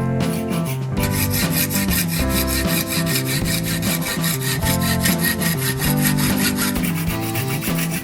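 Music with a melody and bass line over a fast, even, rasping rhythm that starts about a second in and thins out near the end.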